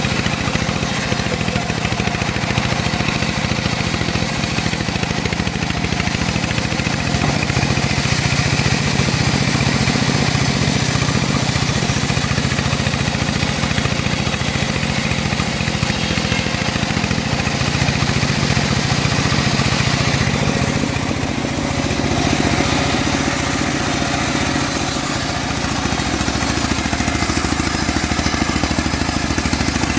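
Engine of a homemade bandsaw sawmill running steadily under a constant load while it saws teak logs. The sound dips and changes briefly about two-thirds of the way through.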